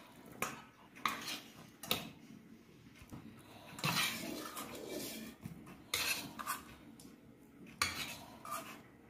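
A metal spoon scrapes cooked chicken mince out of a nonstick kadhai into a stainless-steel bowl, in a series of irregular scrapes and sharp clinks of metal on the pan and bowl.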